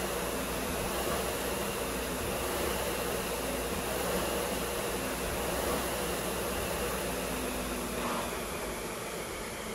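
Concept2 SkiErg's air-resistance flywheel fan whirring, swelling with each pull of the handles about every two seconds. About eight seconds in there is a brief knock as the pulls end, and the fan starts to spin down.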